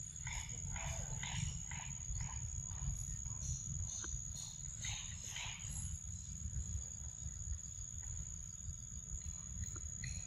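A steady high-pitched insect drone, with a run of short, repeated animal calls over roughly the first half and a constant low rumble underneath.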